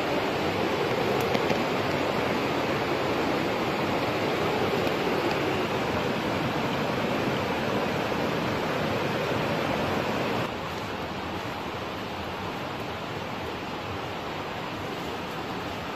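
Steady rush of a nearby rocky river's rapids, an even hiss-like roar of water, which drops to a quieter level about ten seconds in.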